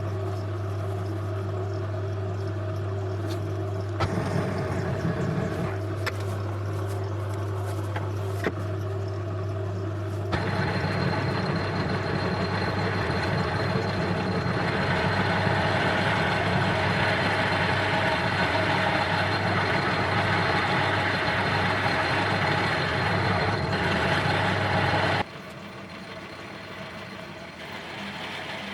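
Myford Super 7 lathe running under power with a steady motor hum, joined by louder cutting noise from a tool working the part, first about four seconds in and more strongly from about ten seconds in. The motor and cutting stop suddenly near the end.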